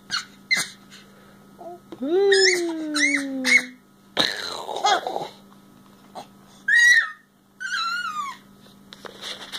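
Baby babbling and squealing in separate short outbursts, with one longer falling vocal sound about two seconds in and high squeaky falling squeals near the middle.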